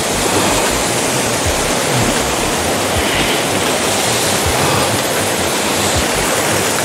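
Mountain spring water gushing out of a stone wall and splashing onto the rocks below: a steady, loud rush of falling water.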